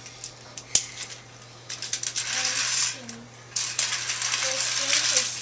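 Plastic toy train engine and cars rattling and clattering on plastic track as they are pushed along, with a sharp click about a second in and two stretches of dense, rapid rattling.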